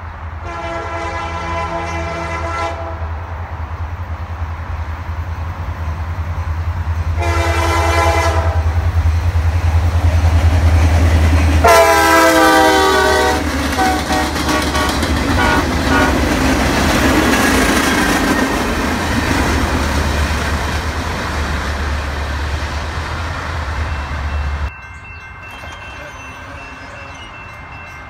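An EMD SD40-2 diesel locomotive sounds its air horn in three blasts as it approaches, the last one louder as it passes, over the 16-cylinder two-stroke engine's rumble that builds as it nears. Then comes the steady roll and clatter of freight cars going by, which cuts off sharply near the end.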